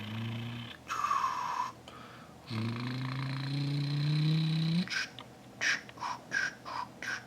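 A person imitating a toy vehicle's engine with their mouth: a low hum that rises steadily in pitch over about two seconds, then a quick run of five short sharp sounds.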